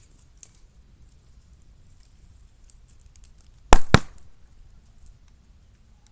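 Bamboo burning in a fire: faint crackling and ticking, then a little over halfway through two loud, sharp bangs in quick succession as a sealed bamboo section bursts.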